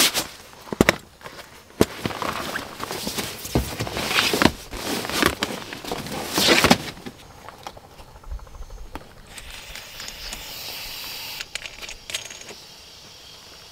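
Handling noises: a run of sharp clicks and knocks mixed with rustling over the first half or so, then softer rustling.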